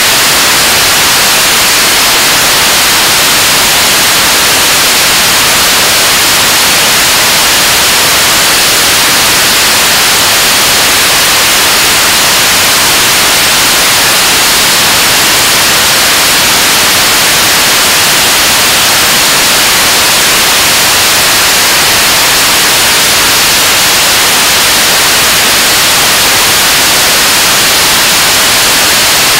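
KSLV-II 7-tonne-class kerosene/liquid-oxygen rocket engine in a hot-fire test, burning steadily: a loud, even rushing noise, strongest in the high range, with no change in level or pitch.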